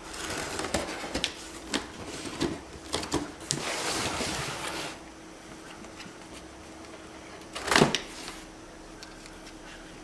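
Cardboard box and packaging being handled and opened: a run of clicks, taps and rustling for the first few seconds, then one louder short scrape or knock about eight seconds in.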